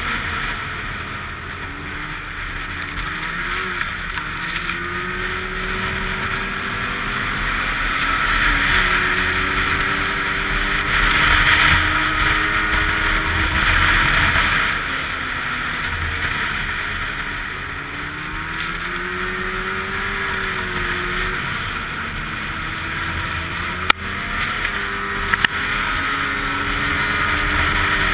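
Snowmobile engine running along a trail, its pitch rising and falling with the throttle over a steady rushing noise. Near the end there are two sharp knocks.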